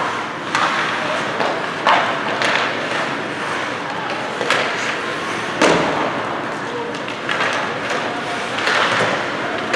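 Ice hockey game sound in a rink: about five sharp cracks and thuds of sticks, puck and boards at uneven intervals, over a steady din with voices.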